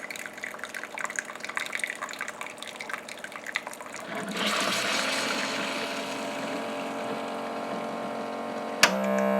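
Worn-out drip coffee maker brewing: a run of irregular drips and spits into the carafe, then about four seconds in a steady hissing, trickling flow, the machine's uneven pour of a coffee maker on its last legs. Near the end a sharp click and then guitar music cut in.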